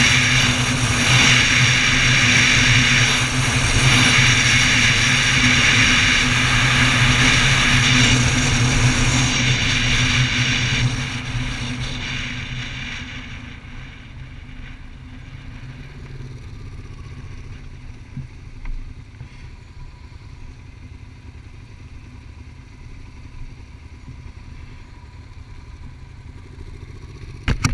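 Motorcycle running at road speed with heavy wind rush on the microphone, then slowing from about eleven seconds in and settling to a quiet idle. At the very end come a few loud knocks and rubs close to the microphone.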